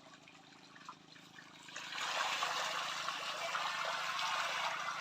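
A steady rush of water sets in suddenly about two seconds in, after a quiet start, and keeps going evenly.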